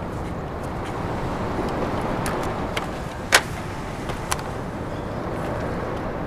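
Chevrolet Suburban running with a steady rumble, with a few sharp clicks and knocks over it, the loudest a little over three seconds in.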